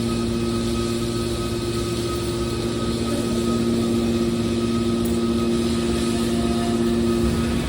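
Hydraulic scrap metal baler running: a steady mechanical hum from its motor and hydraulic pump, even in level throughout.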